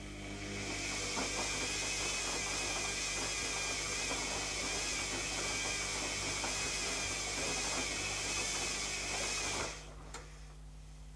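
Zanussi ZKN7120L washing machine running: a dense rattling whir with a strong hiss, about nine seconds long, that stops suddenly near the end, leaving a low hum.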